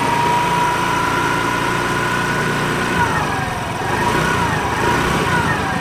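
A freshly rebuilt Hero Maestro Edge scooter's single-cylinder engine, run up to check how it sounds. It runs steadily for about three seconds, then its pitch falls and rises several times as the throttle is worked.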